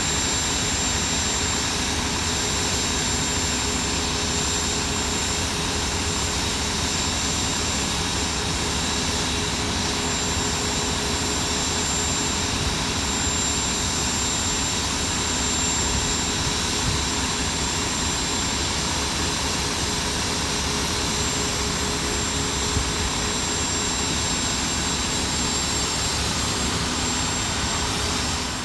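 Fire hose streaming water onto a garbage truck fire under pump pressure: a steady, loud rushing noise with constant whines over it, unchanged throughout.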